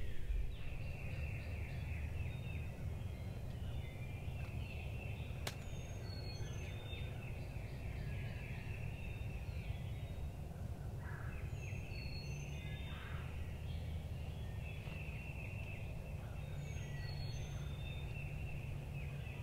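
Distant wild turkey gobbling again and again every few seconds, with a few high songbird whistles, over a low steady rumble of wind.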